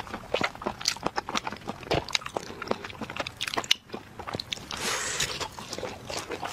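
Close-miked chewing and biting of food: a quick, irregular run of crunches and wet mouth clicks, with a longer crunching noise about five seconds in.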